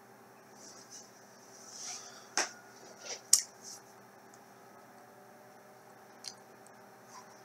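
Soft rustling and a handful of sharp clicks and knocks as a person moves back from the camera and settles into a chair. The two loudest clicks come about two and a half and three and a half seconds in, with two faint ticks later on. A faint steady hum runs underneath.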